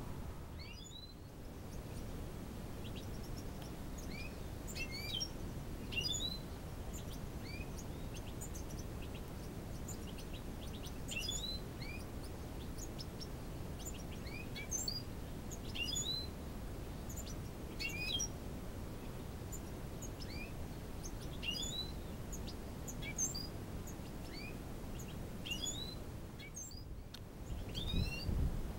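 Small aviary birds chirping: short, high calls that sweep in pitch, scattered throughout and sometimes several in quick succession, over a low steady background rumble.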